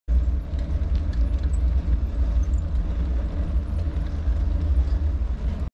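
Steady low rumble of wind buffeting a camera microphone moving along a road, fluttering constantly with a faint hiss above it.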